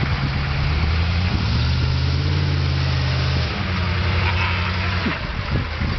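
Humvee's V8 diesel engine running as the truck drives off-road over dirt mounds, a steady low drone that drops back in level about halfway through.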